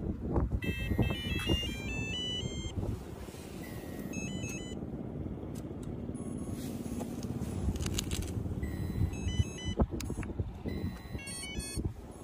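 Short melodies of electronic beeps, played several times: the startup chimes of an RC transmitter and a hydraulic RC excavator's electronics as they are switched on. Under them is a low, even outdoor background noise.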